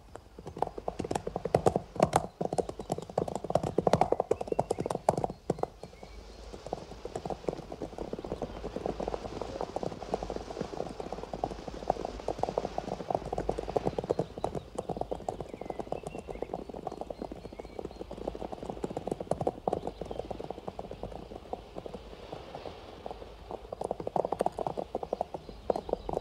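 Hoofbeats of several horses galloping, a dense rapid drumming that is loudest in the first five seconds and then carries on somewhat softer.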